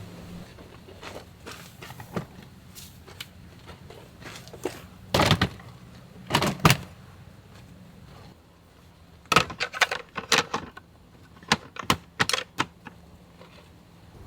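Irregular clicks and knocks in short clusters, the loudest about five and six seconds in, then quick runs of them between about nine and thirteen seconds in.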